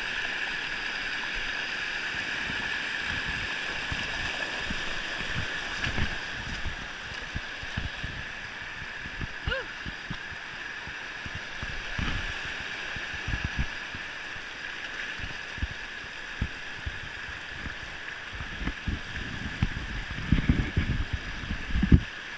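River water rushing over a rock ledge in a small cascade: a steady hiss, with irregular low thumps and knocks that come more often near the end.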